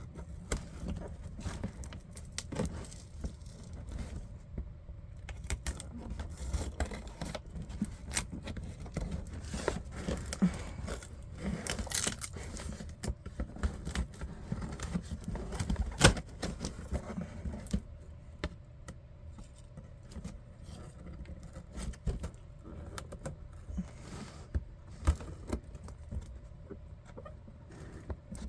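Blunt scissors snipping and scraping at a package, with irregular clicks, rustling and handling noise; the cutting is busiest for the first two-thirds, then thins out. One sharp loud click stands out about two-thirds of the way through.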